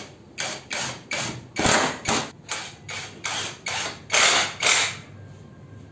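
Cordless impact driver driving screws into wood in a dozen or so short bursts, about two a second.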